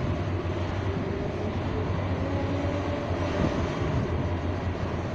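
Hitachi ZAXIS 870 high-reach demolition excavator's diesel engine running steadily, a constant low drone with a faint wavering whine above it.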